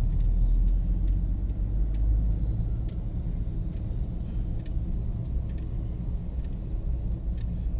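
Steady low rumble of a car's engine and tyres heard from inside the cabin while it is driven through city traffic, with a few faint scattered clicks.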